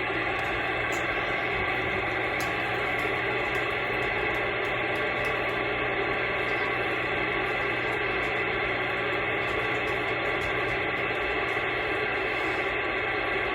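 Steady static hiss from a CB radio's speaker between transmissions on an open skip band, with a few faint steady tones mixed in.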